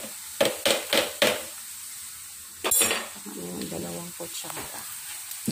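Wooden spatula knocking and scraping in a frying pan of sizzling shrimp paste, several quick knocks in the first second and a half. About halfway through comes one sharp metal clank that rings on briefly, a stainless pot lid set down on the tiled counter, then lighter knocks.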